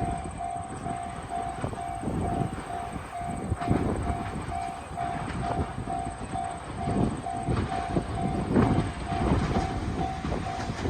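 Interior noise of a 415 series electric train: rail rumble with irregular knocks from the wheels and car body. Over it, a steady-pitched electronic beep repeats about three times a second.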